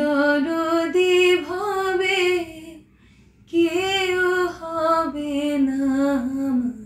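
A high female voice singing two long, drawn-out phrases of a slow Bengali song, with a short break of about half a second between them and little accompaniment.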